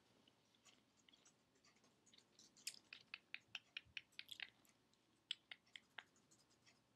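Faint wet clicks and smacks from a teacup piglet's mouth as it nibbles and mouths at a face: a quick run of a dozen or so a little over two seconds in, then a few scattered ones.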